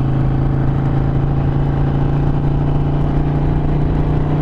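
Harley-Davidson Sportster 883's V-twin engine running at a steady cruise, heard from the rider's seat with wind rushing past the microphone.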